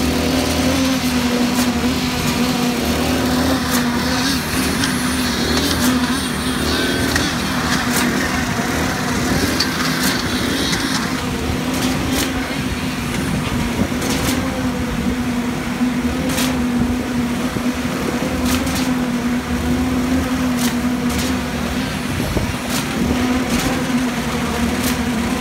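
Construction machinery on a concrete slab pour running with a steady hum, with scattered clicks and knocks.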